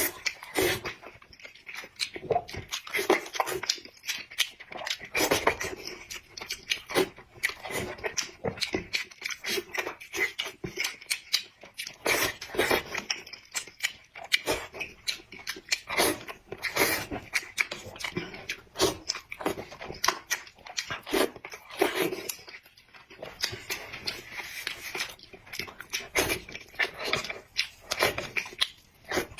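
A person chewing and biting food, with many quick, irregular crunches and mouth clicks.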